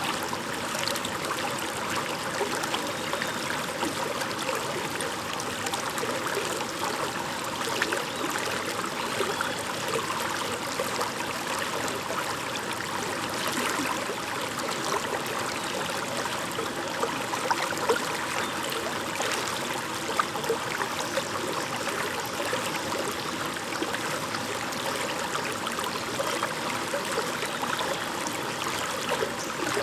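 A shallow stream babbling over stones, a steady rush of water full of small quick splashes and trickles.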